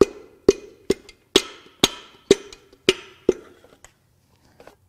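Hammer blows driving a rust-seized piston out of its cylinder bore in a cast engine block. There are about eight sharp strikes, roughly two a second, each with a short metallic ring, and they stop about three seconds in, followed by a few faint clicks.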